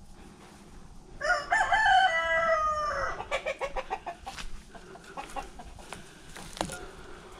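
A rooster crows once, a call of nearly two seconds, followed by a run of short clucks from the flock.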